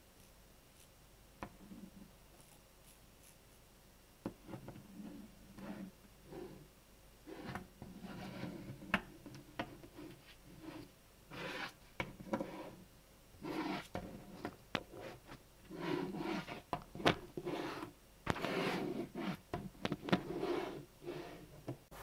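Small magnetic balls handled by hand: sharp clicks as they snap together, with rubbing and scraping as they slide and roll. Sparse at first, then busier from about four seconds in.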